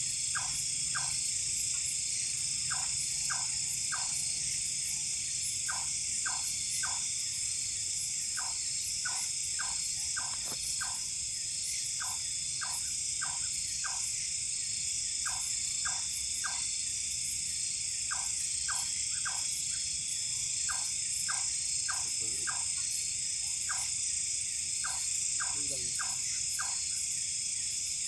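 Night insect chorus: a dense, steady high-pitched trilling of crickets and other insects, with short calls repeating in quick groups of two or three throughout.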